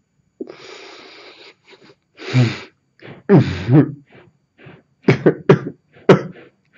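A man sobbing: a long noisy breath, two drawn-out voiced cries about two and three seconds in, then three short sharp sobs near the end.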